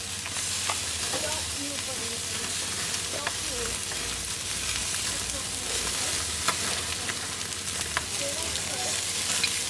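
Chicken wings and leg quarters sizzling on a gas grill's grate, a steady hiss. A few light clicks of metal tongs on the grate come as raw wings are laid down.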